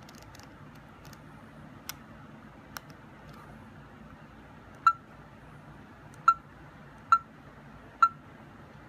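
Four short, loud electronic beeps at one pitch, about a second apart, from a replica Space: 1999 commlock prop as its side buttons are pressed; two faint clicks of the controls come a few seconds earlier.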